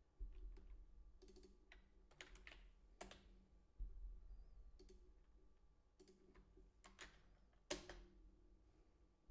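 Faint computer keyboard typing: irregular, scattered keystrokes, with a couple of louder key presses.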